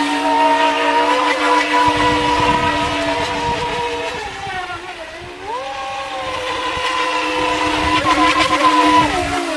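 Feilun FT011 RC speedboat's brushless electric motor running with a steady high whine, over the rush of water and spray. About halfway through the pitch sags as the throttle eases, then climbs back; it sags again at the very end.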